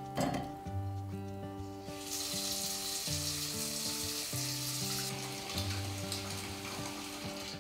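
Tap water running into a cast-iron pot of cut potatoes: a steady hiss for about three seconds that cuts off sharply. There is a single knock just after the start, and soft background music plays throughout.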